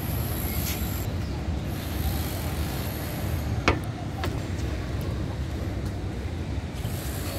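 Steady low rumble of city traffic noise, with two sharp clicks a little after the middle, about half a second apart.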